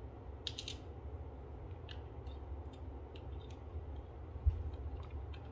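Screwdriver turning a small screw into a plastic soap-dispenser housing: scattered light clicks and ticks of the bit and screw, with a dull bump about four and a half seconds in.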